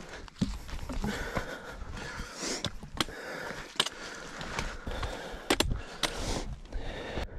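A hiker's footsteps and breathing on a steep, rocky mountain trail, with irregular sharp clicks and knocks throughout.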